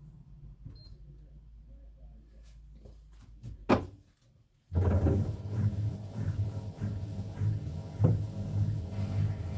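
Beko bPRO500 washing machine starting its first calibration cycle: a single sharp click a little before the middle, then after a brief silence a steady low machine hum starts up suddenly with a few light knocks, while the drum stays still.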